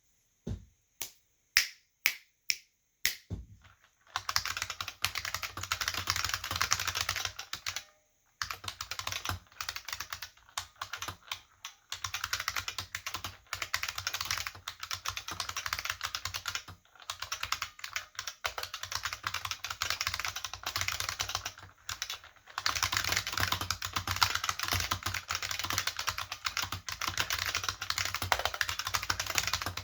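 IBM 5155 keyboard with capacitive buckling-spring switches and PBT dye-sub keycaps being typed on. It opens with about seven single, separate keystrokes, then goes into fast continuous typing broken by a few short pauses.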